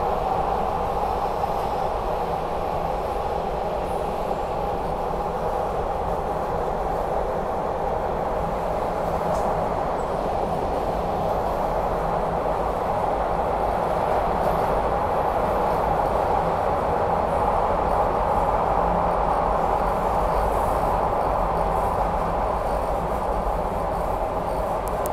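SEPTA Broad Street Line subway car, a Kawasaki B-IV, running at speed through a tunnel, heard from inside the car: a steady, loud roar of wheels on rail over a low rumble, without letting up.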